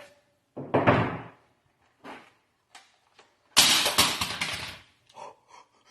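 Handling noise: two rustling, clattering bursts, a short one about half a second in and a longer, louder one near the middle, with a few light clicks between and after.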